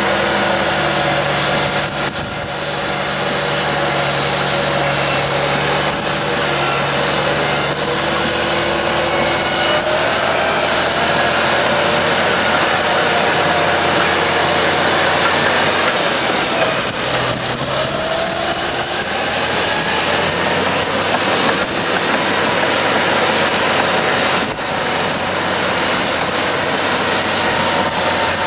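Caterpillar D6C crawler bulldozer's diesel engine running hard while it pushes soil, with a high whine above the engine note. About two-thirds of the way through, the engine pitch sags briefly and then recovers.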